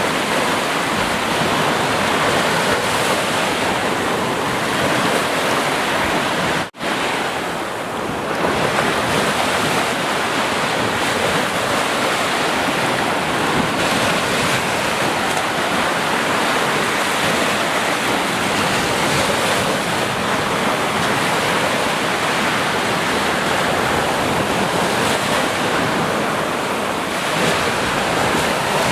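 Sea surf washing steadily onto the shore, a continuous dense rush of breaking waves, with a sudden split-second dropout about seven seconds in.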